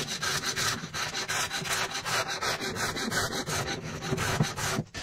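Quick back-and-forth strokes of a small hand tool rubbing along the top edge of a wooden door, several strokes a second, stopping near the end. It is taking a little off where the door rubs the frame.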